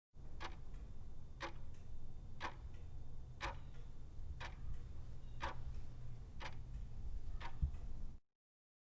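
Clock ticking, one tick a second, eight ticks in all, over a steady low hum. It starts and cuts off abruptly, like a timer sound effect.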